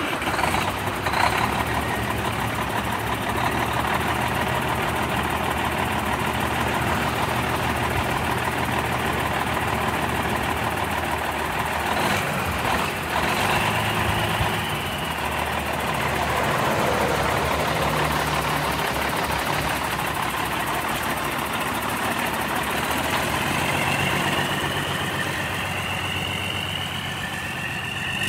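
Peterbilt 378 semi tractor's diesel engine idling steadily, then pulling away, with a whine rising in pitch near the end.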